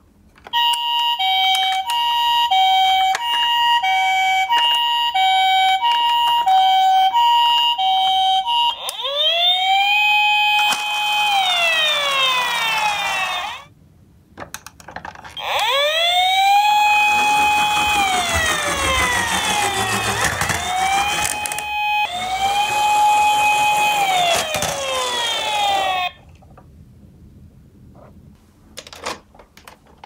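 Toy ambulance's electronic sound unit playing siren sounds. First comes a two-tone hi-lo 'pee-poh' siren for about eight seconds. Then a rising-and-falling wailing siren plays, stops briefly, and runs again for about ten seconds.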